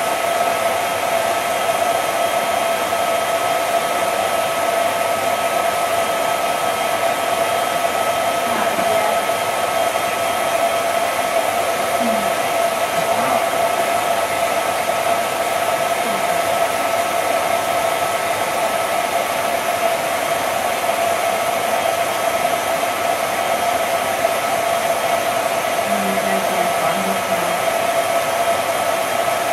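Cine film projector running: a steady motor whir with a constant hum that does not change.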